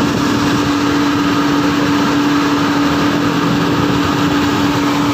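An electric motor under a 2012 Toyota Grandia whirring steadily with a constant hum, running as soon as the ignition is switched on with the engine not started; the owner likens it to the radiator cooling fan. While it runs, the engine will not start.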